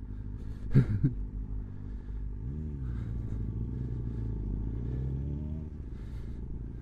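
Kawasaki ZX9R's inline-four engine running under way. It revs up and down briefly about two and a half seconds in, holds a steady note that climbs slightly, and eases off near the end.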